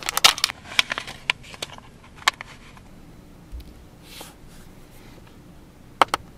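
Crinkling and crackling of a thin white sheet being folded and creased between the fingers: a dense run of crackles over the first two seconds, then one sharp snap. Near the end, two sharp clicks of a hobby knife against the cutting mat.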